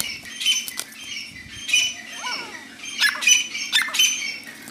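A grey francolin and a chicken fighting: wings flapping in a scuffle at the start. Short, harsh, high-pitched bird calls come in about half a dozen bursts throughout.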